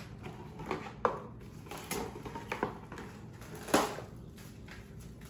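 Plastic cling wrap being pulled from its cardboard box and handled, giving a few scattered crinkles and clicks, the sharpest nearly four seconds in.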